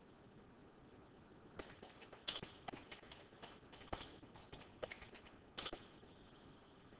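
Quiet room with a run of irregular light clicks and taps, starting about a second and a half in and stopping about a second before the end.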